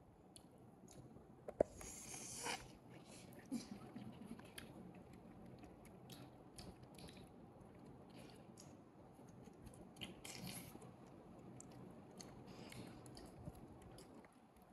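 Baby macaque chewing fruit: faint, irregular wet clicks and soft crunches of small bites, with one sharper click about one and a half seconds in.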